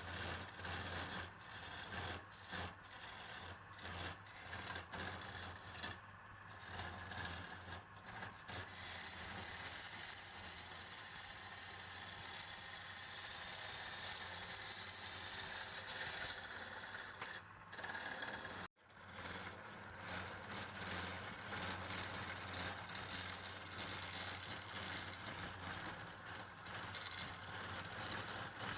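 Wood lathe running, its motor humming steadily while a turning tool scrapes and rattles against the spinning wood. There are several brief drop-outs in the sound, the deepest about two-thirds of the way through.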